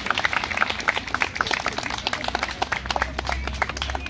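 Audience applauding with many hands clapping, the clapping thinning out near the end.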